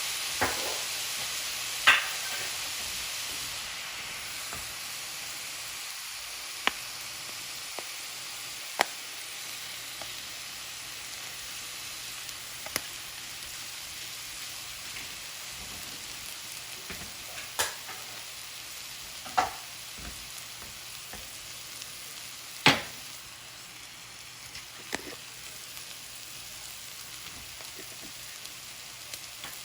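Pork fried rice sizzling in a hot pan, a steady hiss that slowly fades, with occasional sharp taps as it is stirred.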